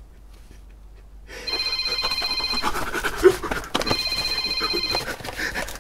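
A telephone ringing with a trilling electronic ring, two rings of about a second each, the first starting about a second and a half in. Heavy breathing sounds beneath the rings.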